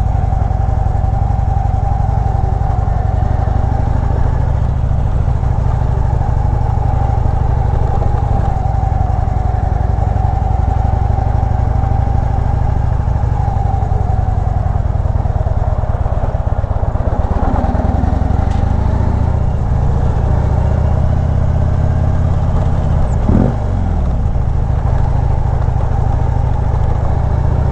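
2014 Harley-Davidson Street Glide's V-twin engine running steadily as the motorcycle is ridden slowly.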